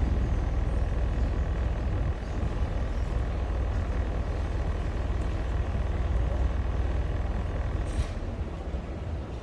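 A boat's engine running steadily with a low drone, one short click about eight seconds in.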